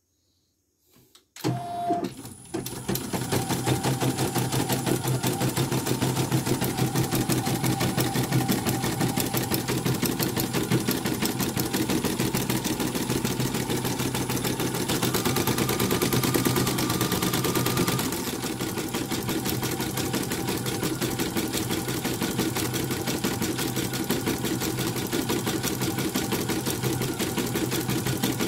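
Elnoss embroidery machine starting up about a second and a half in and stitching continuously: a fast, steady needle clatter as the hoop frame moves the fabric. It settles slightly quieter past the middle.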